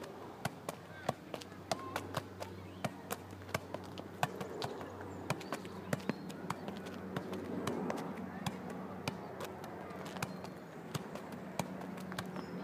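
A football being juggled with feet and knees: a run of sharp taps as the ball is struck, roughly two a second and unevenly spaced.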